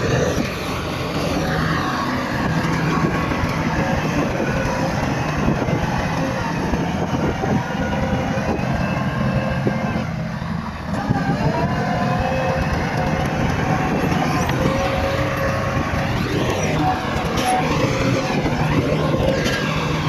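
Bulldozer's diesel engine running steadily under load, its pitch shifting a little and dipping briefly about ten seconds in.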